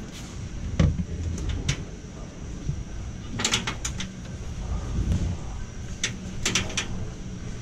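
Rag wiping inside the pin boots of a Brunswick pinsetter, with a few sharp clacks and scrapes as the boots are handled, over a steady low machinery hum.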